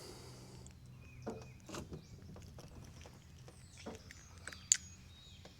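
Quiet creekside ambience: a few soft knocks and taps, with short high bird chirps. The sharpest chirp comes about three-quarters of the way through.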